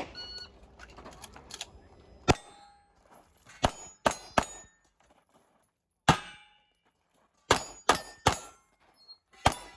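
Pistol shots from a CZ Shadow 2 fired in a USPSA stage, about nine in all in uneven strings, some followed by a short metallic ring as steel targets are hit.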